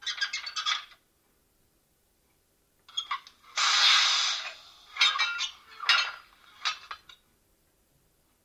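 Coupling and uncoupling sound effects from the digital sound decoder of a Trix H0 model BR 185 Traxx 2 electric locomotive: the last metallic clanks of the coupling sound, then about three seconds in the uncoupling sound, a few clicks, a hiss of air lasting about a second, and two more bursts of metallic clanking.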